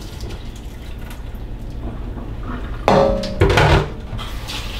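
A plastic colander knocking against a stainless steel strainer bowl in a kitchen sink as soaked rice is tipped from one into the other: two ringing metal clanks about half a second apart, roughly three seconds in.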